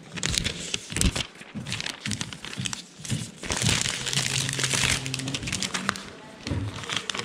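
Clear plastic wrapping and paper crinkling and rustling as a repaired iPad is unwrapped by hand, with small crackles and clicks throughout and the densest crinkling about three and a half to five seconds in.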